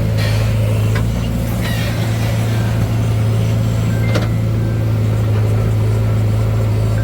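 Heavy diesel engine running steadily at a constant low speed, with a few short clicks or clanks over it.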